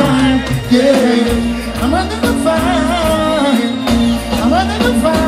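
Live reggae band playing, with a steady bass line and drums, and a vocalist singing a wavering melody over it through the PA.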